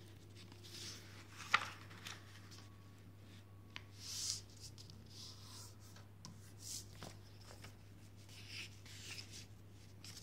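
A sheet of paper being handled and folded: soft swishes and rustles of paper sliding and creasing, with a few sharp crackles. A steady low electrical hum sits underneath.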